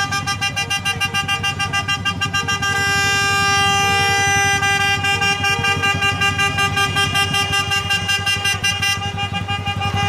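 Vehicle horns honking in a protest buzinaço: one horn held in a single long continuous blast, with shorter honks from other horns coming and going, over a fast even pulsing.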